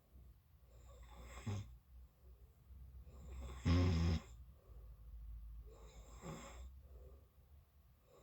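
A person snoring in their sleep, three snores about two and a half seconds apart; the middle one is the loudest and longest, with a deep rumble.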